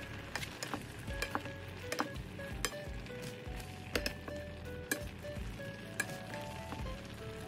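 Wooden spoon stirring and turning leafy vegetables in a cooking pot, knocking against the pot at irregular intervals of about a second, over a steady sizzle.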